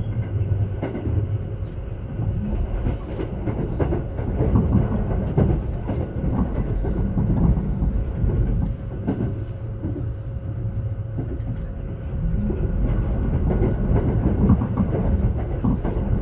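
Haruka airport express electric train running along the line: a steady low rumble that swells and eases, with short clicks from the wheels over the rails and a faint steady hum.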